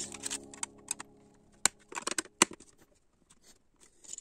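Background music fades out in the first second or two. Then come a few sharp plastic clicks and light rustling: LEGO pieces being handled and pressed together.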